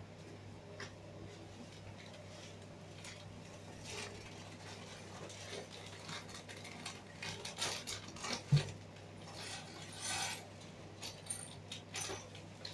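Plastic bags of Lego bricks being handled on a table: crinkling plastic and small plastic pieces clicking against each other, with one sharp knock about two-thirds of the way through, over a steady low hum.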